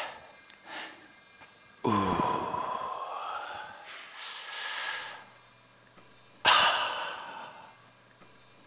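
A man's loud, breathy sighs and moans: two long voiced sighs, each starting suddenly and trailing off, about two and six and a half seconds in, with a sharp breath drawn in between them.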